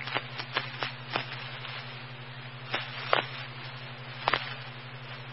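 Open radio scanner channel between transmissions: a steady hiss over a low hum, with scattered sharp clicks and pops of static.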